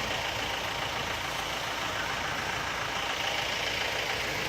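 A motor vehicle's engine running steadily, with a constant noise and no changes in pitch or level.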